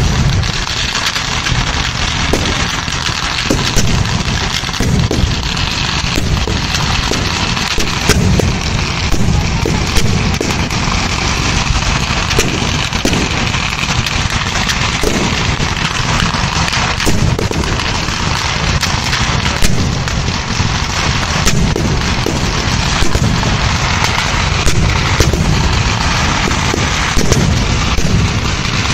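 Kerala temple fireworks (vedikkettu) going off in a dense, unbroken barrage: countless bangs and cracks running into one another without a pause.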